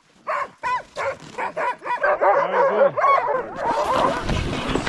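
A team of harnessed sled dogs yipping and barking excitedly, many quick overlapping yelps, eager to run. Near the end a steady rushing hiss of sled runners over snow takes over as the team sets off.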